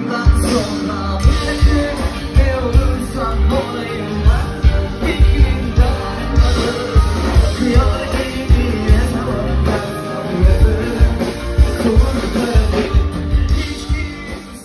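A rock band playing live with a singer, the drum kit and bass to the fore, fading out near the end.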